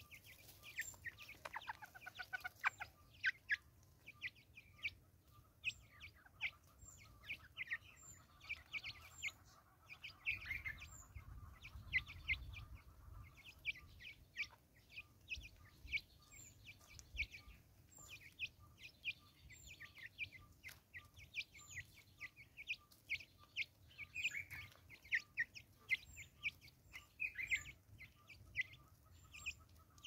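Natal spurfowl flock feeding on seed on a wooden log: many quick, irregular pecking taps and soft clucks throughout, with a short falling call about a second in.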